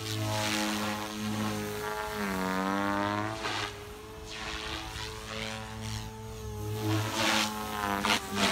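Electric Goblin 420 RC helicopter in flight, its rotor running in a steady pitched drone at about 3400 rpm headspeed. The pitch sags and recovers about two seconds in and again near the end, as the headspeed bogs a little under load. Loud blade whooshes come as it manoeuvres near the end.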